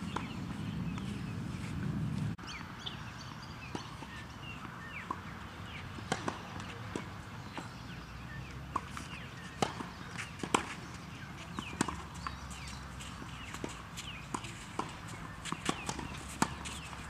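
Tennis balls struck by rackets and bouncing on clay courts: sharp pops at irregular intervals, some near, some from neighbouring courts, with birds chirping throughout. A low rumble runs for the first two seconds and cuts off abruptly.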